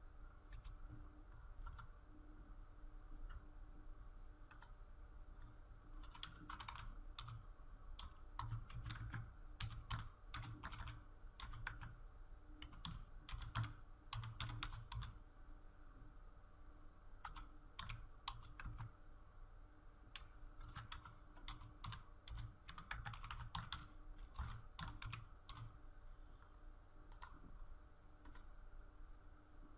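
Typing on a computer keyboard: fairly faint runs of quick keystrokes with short pauses between them, over a low steady hum.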